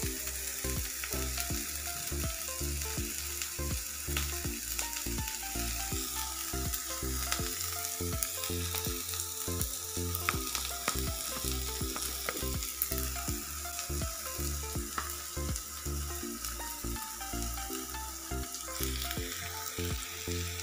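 Chopped onion, ginger, garlic and green chilli sizzling steadily as they sauté in coconut oil in a nonstick pan, the onion softening.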